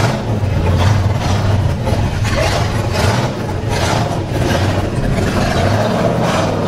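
Off-road truck engine running steadily at low revs, a deep continuous engine note.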